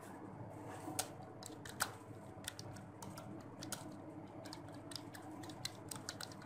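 Computer keyboard keys being typed in a quick, irregular run of faint clicks, over a steady low hum.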